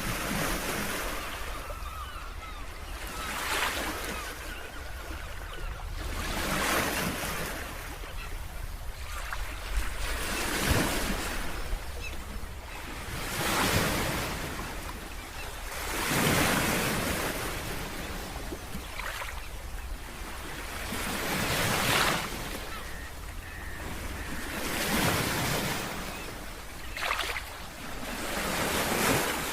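Ocean surf: waves washing in one after another, the rushing noise swelling and falling back every three seconds or so.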